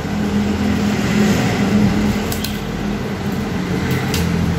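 A steady low mechanical hum, with two light clicks about two and a half and four seconds in as test leads are clipped on.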